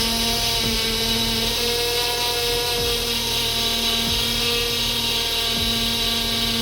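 Dacia power steering pump whining steadily with the engine running while the fluid is low.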